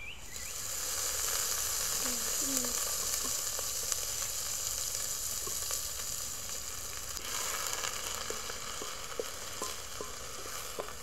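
Chopped onions sizzling as they start to fry in hot cooking oil in a metal pot. The sizzle starts about half a second in and swells again around seven seconds in, with light taps and scrapes of a wooden spoon stirring near the end.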